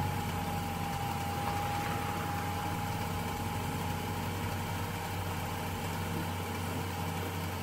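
A steady machine hum with a thin, high, steady whine over it.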